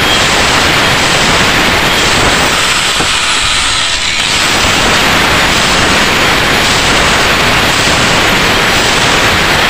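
Electric angle grinder grinding down the blade edge of a four-blade metal outboard propeller to trim the blades to a smaller size: a loud continuous grinding hiss that eases briefly about three to four seconds in.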